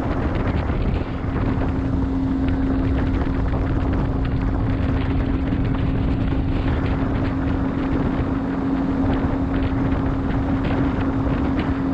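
Motorboat engine running steadily under way, a constant droning hum, with heavy wind noise on the microphone.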